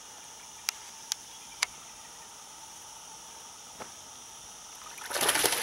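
Steady high buzz of insects, with three sharp clicks in the first two seconds. About five seconds in, water starts splashing loudly as a black bass strikes the lure at the surface.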